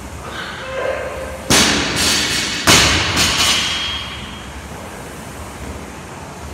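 Loaded barbell with bumper plates dropped onto rubber gym flooring: a loud crash about a second and a half in, a second bang as it bounces just over a second later, then a few smaller rattles as it settles.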